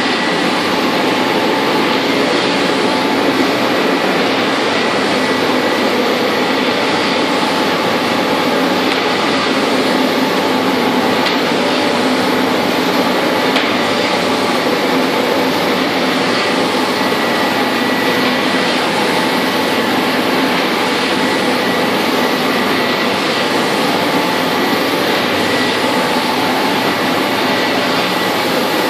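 UV coating line running steadily: a Roland Favorit coating machine and a UV drying tunnel with cooling fans and a conveyor belt, giving constant machine and fan noise with a faint high whine.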